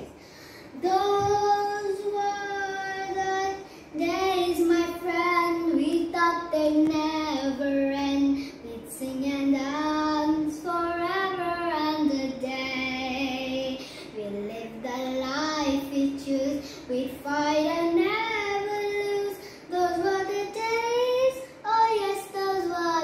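A young girl singing solo in sustained, melodic phrases with short breaths between them, and no accompaniment heard.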